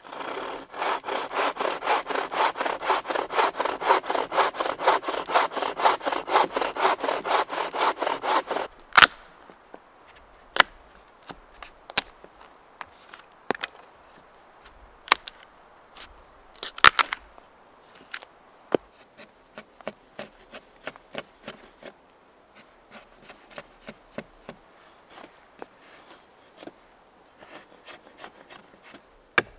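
Wooden frame saw cutting through a fallen log in fast, even strokes that stop abruptly about nine seconds in. A homemade billhook then shaves and hews the log, giving scattered sharp cracks and knocks with quieter scraping.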